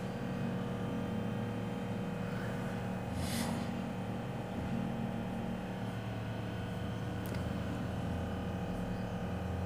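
Steady low background hum with several steady tones, and a short soft hiss about three seconds in.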